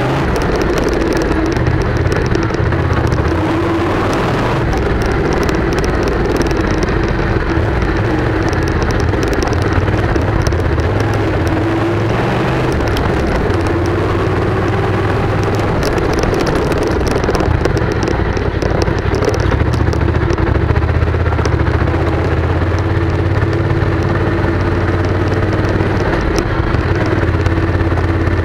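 Motorcycle engine running steadily while riding over a rough dirt and gravel track, with frequent small rattles and clicks from the bumps.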